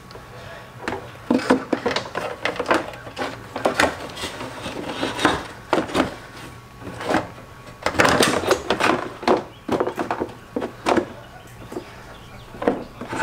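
A plastic inner fender liner being pushed and worked into a Jeep's front wheel well by hand: irregular knocks, clicks and scraping of the plastic against the fender and body, busiest about eight seconds in.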